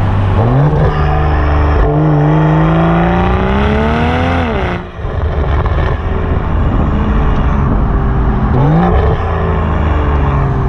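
BMW M340i's B58 turbocharged straight-six through a Milltek Sport downpipe and full exhaust, heard at the tailpipe while driving. The revs climb steadily under acceleration for about four seconds and cut off suddenly near the middle, then it runs steady at lower revs, with a quick short rise in revs a little before the end.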